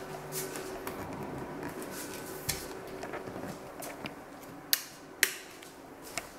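Quiet movement and handling noise over a steady low hum, with two sharp clicks about half a second apart a little before the end.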